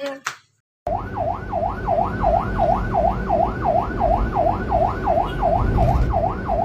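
Emergency-vehicle siren in a fast yelp, its pitch sweeping up and down about three times a second over a low engine rumble. It cuts in about a second in, after a brief silence.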